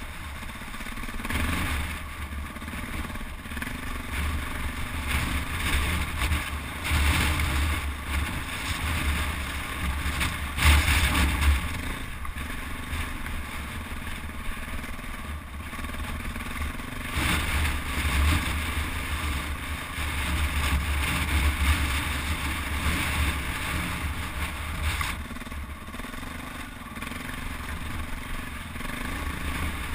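KTM 400 EXC single-cylinder four-stroke enduro engine running under load while riding off-road, its loudness swelling and easing repeatedly with the throttle, loudest about eleven seconds in.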